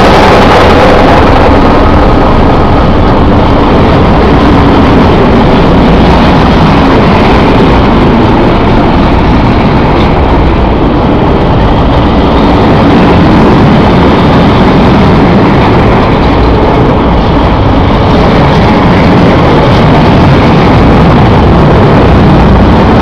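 Freight train of tank wagons rolling past close by: a loud, steady rumble of wheels on rail that carries on unbroken.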